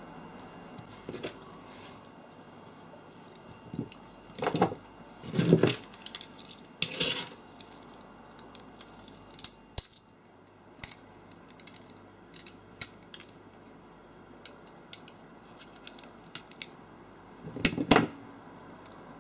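Small metal parts and hand tools clinking and clattering as they are handled and set down, with irregular sharp clicks. A few louder clatters come about four to seven seconds in and again near the end.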